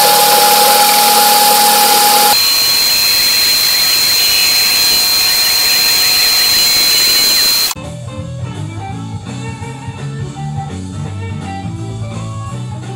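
Metal lathe running loud with a steady whine that steps up to a higher pitch about two seconds in. About two-thirds of the way through it cuts off suddenly and guitar background music takes over.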